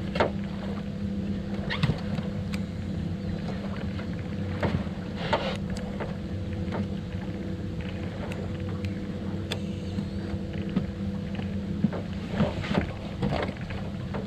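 A boat motor humming steadily, with scattered sharp clicks and knocks of gear on the boat.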